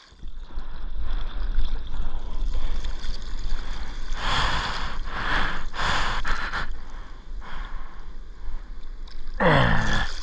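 Seawater sloshing and splashing against a surfer's camera and board, with a steady rumble on the microphone; a few louder splashes from arm paddle strokes come in the middle. Near the end a short sound falls in pitch as water washes over the camera.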